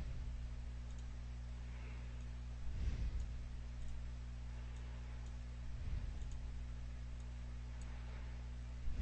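Computer mouse clicking, a few soft clicks and thumps about three seconds apart, over a steady low electrical hum from the recording setup.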